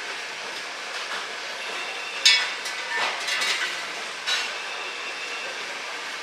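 Butchering at a market pork stall: steady background hiss with a few sharp metallic clinks and knocks, the loudest about two seconds in and a cluster of lighter ones just after.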